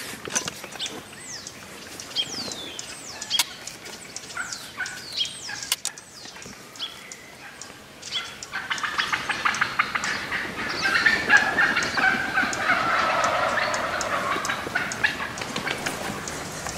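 A flock of wild turkeys calling, the clucks and yelps thickening into a loud, dense chatter from about halfway through as the flock is spooked.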